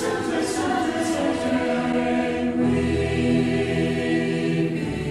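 Choir singing in held, layered voices, with a deep low layer joining about two and a half seconds in.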